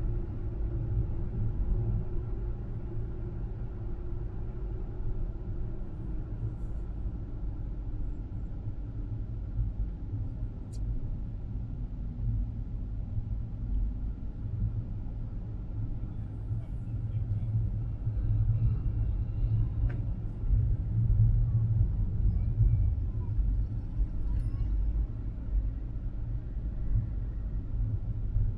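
Car driving along: a steady low rumble of engine and tyre noise, swelling a little about two-thirds of the way in.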